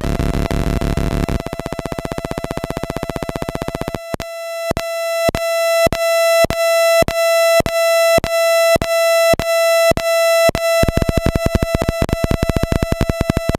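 DIY NAND-gate square-wave oscillator synth: a harsh buzzing drone that, about four seconds in, turns into a steady high square-wave tone switched on and off in an even pulse, under two beats a second, each beat swelling louder. Near the end the pulse speeds up into a fast stutter. This is the on-off pattern of one oscillator gating another.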